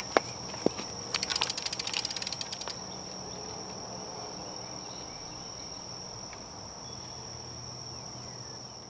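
Outdoor insect chorus: a steady, high-pitched trill throughout, with a run of rapid sharp clicks in the first three seconds.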